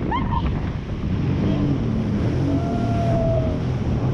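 Jet ski engine running at speed, with water spray and wind buffeting the handlebar-mounted microphone.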